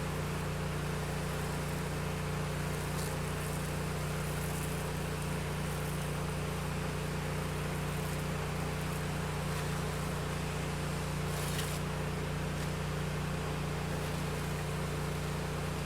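Pressure washer's engine running steadily at full throttle, a constant hum under the hiss of the water spray, with a couple of faint crackles of spray striking a surface about 3 and 11 seconds in.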